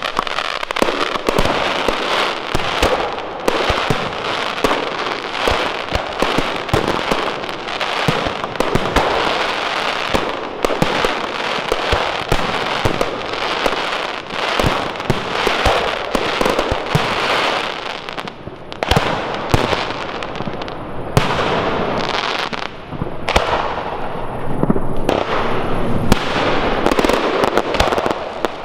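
Large professional fireworks display: aerial shells bursting in a dense, continuous run of sharp bangs and crackling, easing briefly about eighteen seconds in before building again.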